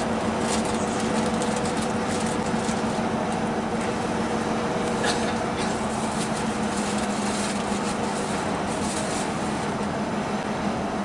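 Steady engine and road noise heard inside a moving coach, with a constant low hum and a few faint rattles.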